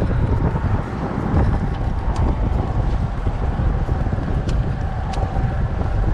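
Wind buffeting the microphone, a steady low rumble, with a few faint clicks about two, four and a half and five seconds in.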